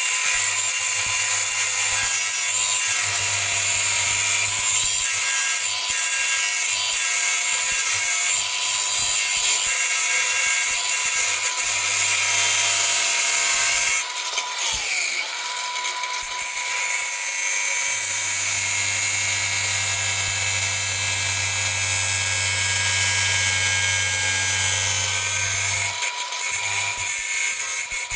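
Electric grinder running steadily and grinding on a steel chainsaw felling dog, a high motor whine over harsh grinding noise. About halfway through the whine winds down briefly and spins back up, and the grinding carries on until near the end.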